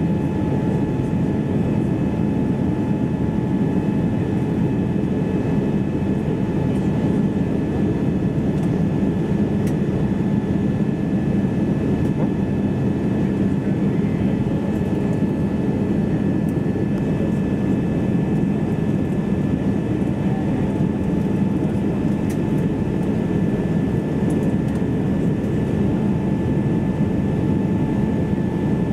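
Airbus A320neo cabin noise: its Pratt & Whitney PW1100G geared turbofan engines running steadily, heard from inside the cabin as a constant rumble with a few steady hums riding on it.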